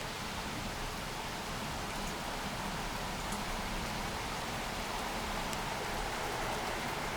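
Heavy rain falling steadily during a thunderstorm, an even hiss with a few faint drop ticks, growing slightly louder.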